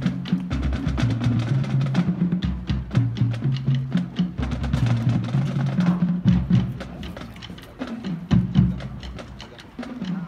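Marching band drumline playing a cadence: quick snare strokes and rim clicks over pitched bass drums. The beat is dense at first and thins out and gets quieter after about six seconds.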